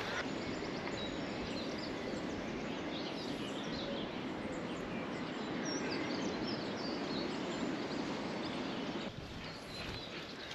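Outdoor ambience: a steady background hiss with small birds chirping and twittering throughout.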